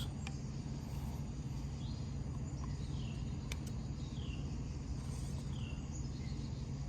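Outdoor ambience: a steady low rumble, with a bird giving several short, faint calls that fall in pitch.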